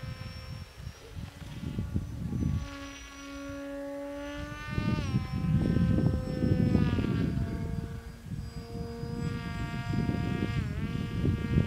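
Propeller motor of a Zagi flying-wing model plane whining overhead. The pitch drops to about half for two seconds from roughly two and a half seconds in, then rises sharply near five seconds in, with a short dip near the end, as the throttle changes. A low rumbling noise sits under it and eases while the pitch is low.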